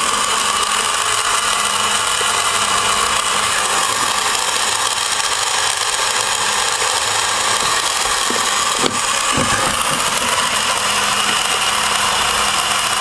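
Smithsonian Motor-Works battery-powered plastic four-cylinder model engine running: its small electric motor turns the plastic crankshaft, pistons, valve train and belt-driven fan with a steady mechanical whir. A single short click about nine seconds in.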